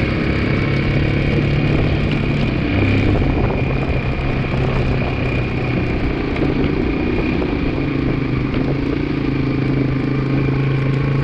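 2002 Yamaha 225 motorcycle engine running at a fairly steady speed, dipping briefly about three seconds in. The owner suspects something going on with the transmission or clutch.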